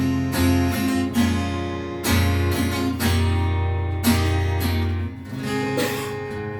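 Acoustic guitar strumming chords, a new chord about every second with a steady low bass under it.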